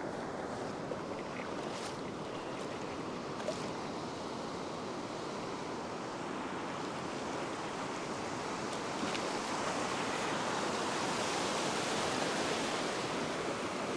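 Small waves breaking and washing up over shallow sand, a steady hiss of surf that swells louder about nine seconds in as a wave washes in.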